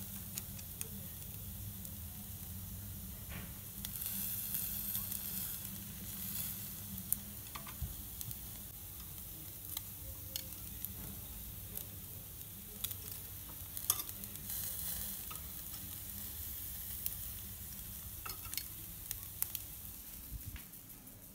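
Meat and sausages sizzling on the rack of a Beper electric grill: a steady frying hiss that swells twice. Sharp clicks of a metal fork and spatula against the grate come now and then.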